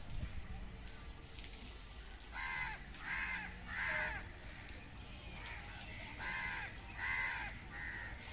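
A crow cawing six times, in two runs of three harsh calls about three seconds apart, over a low steady rumble.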